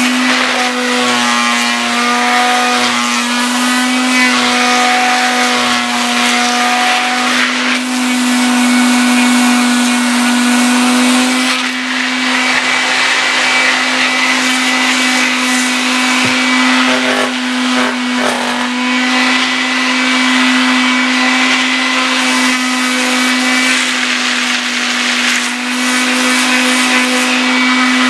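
A handheld electric power tool's motor running continuously with a steady hum, its pitch shifting slightly now and then as the tool is worked against a part.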